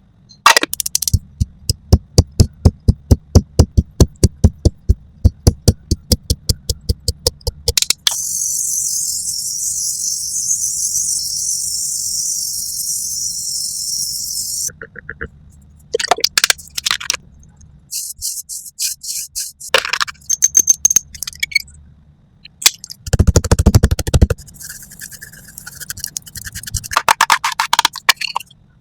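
Close-miked ASMR makeup sounds. A fast run of sharp taps, about five a second, lasts for the first eight seconds. A steady high hiss follows for about seven seconds, then scattered taps, scrapes and brushing strokes.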